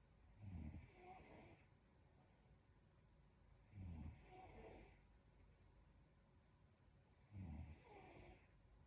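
A young woman snoring in her sleep: three snores about three and a half seconds apart, each a short low rumble followed by a breathy hiss.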